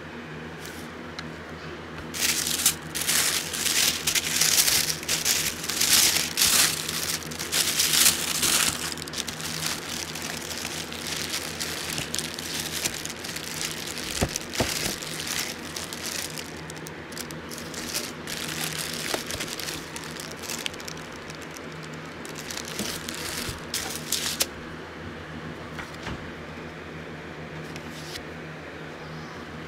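Tissue paper and a clear plastic shoe bag crinkling and rustling as they are handled and pulled out of a shoe box. The crinkling is loud for several seconds near the start, turns to quieter rustling, then comes back in a second spell later on.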